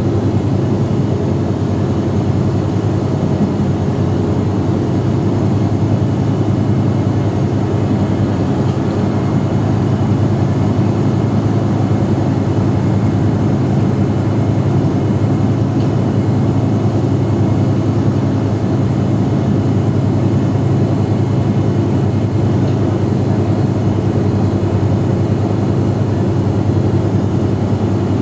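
Mercedes-Benz OM457hLA inline-six turbodiesel of a Mercedes-Benz O345 Conecto G articulated bus idling steadily while the bus stands still.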